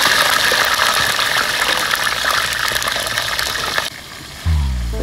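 Hot oil in a wide wok sizzling and bubbling hard as a trayful of worms is tipped into it for deep-frying. The sizzle drops away about four seconds in, and music starts just after.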